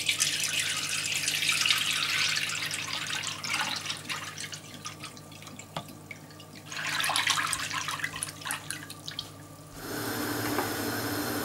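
Thick liquid from fermented chili pepper mash poured from a bowl through a metal mesh sieve into a pan, splashing and trickling, in two spells with a quieter gap between them. Near the end it gives way to a steady hiss.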